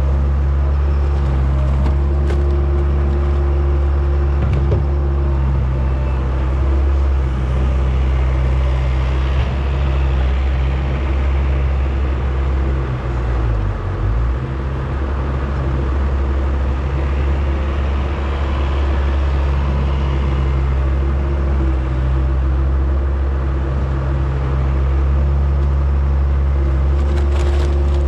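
John Deere skid steer's diesel engine running steadily under work, with a brief drop in engine speed about halfway through before it picks back up.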